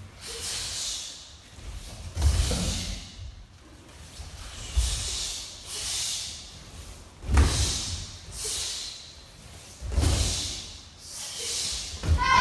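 A group of children moving in unison through a Tang Soo Do form: cotton uniforms swishing and snapping together with bare feet stepping and stamping on the mats, in a burst about every two and a half seconds.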